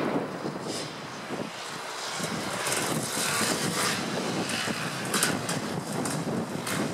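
Kawasaki KX250 two-stroke dirt bike with an FMF Gnarly exhaust pipe, riding past. Its engine dips about a second in, then grows louder as the bike comes close and passes.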